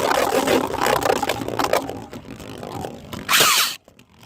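Plastic Beyblade and launcher rattling as the 3D-printed top is set up and launched, with a loud whirring zip about three and a half seconds in, falling in pitch, that cuts off suddenly.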